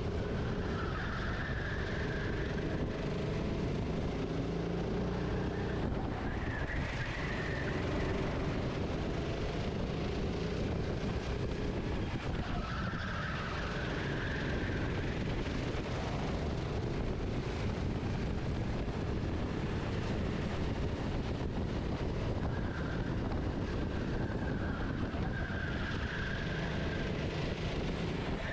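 Kart engine heard onboard, running hard with its revs rising and falling through the corners, over steady wind and track noise.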